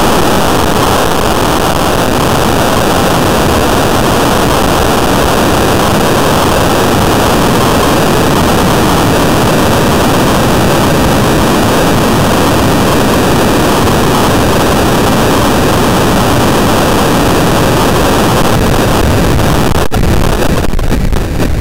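Loud, steady rush of air over the onboard camera microphone of a homemade model rocket in flight. A sharp click comes about 20 seconds in, and after it the rush turns choppy and fluttering.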